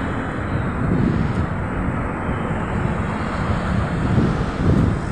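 Wind buffeting a phone's microphone in a steady low rumble, with stronger gusts about a second in and again near the end.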